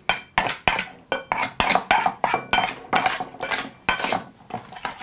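A metal spoon scraping and clinking against a small metal bowl at about three strokes a second, stirring sugar into thick sour cream until it dissolves. The strokes grow fainter near the end.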